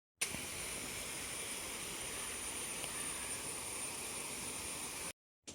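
A steady rushing mechanical noise with a thin high whine, unchanging throughout, starting and stopping abruptly.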